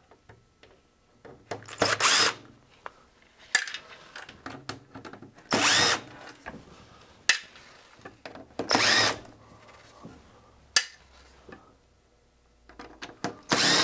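Cordless drill/driver running in short bursts, backing out the screws that hold circuit boards in a metal instrument chassis. There are about six bursts, each under a second long. The longest come about 2, 6 and 9 seconds in, and the motor's pitch rises and falls as it starts and stops, with small clicks between bursts.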